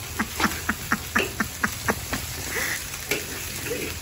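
Long metal ladle scraping and stirring food in a large steel wok, about ten quick scraping strokes in the first two seconds, then a few more, over a steady low rumble.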